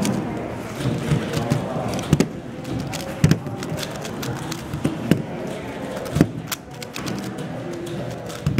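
Indistinct chatter of many voices in a hall, with scattered sharp clicks and knocks from a plastic 3x3 speed cube being handled and set against a competition timer pad.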